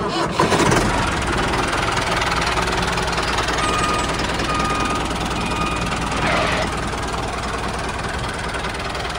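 Tractor engine running steadily for the moving toy tractor, with three short beeps near the middle.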